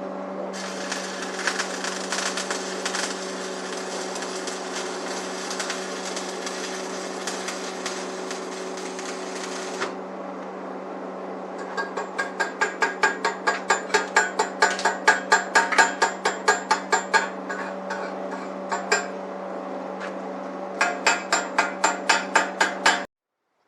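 Electric arc welder running a weld for about nine seconds with a steady crackling hiss over a low hum. It stops, then a hammer strikes the metal in quick taps, about three or four a second, with a shorter second run of taps near the end.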